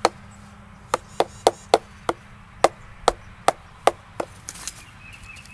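Mallet striking a carving chisel into a wooden log, about a dozen sharp knocks, a few a second, in uneven runs that stop about four seconds in.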